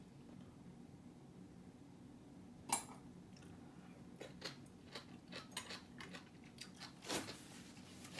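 Eating utensils clicking against a dish: one sharp clink about three seconds in, then a run of lighter clicks and a second stronger one near the end.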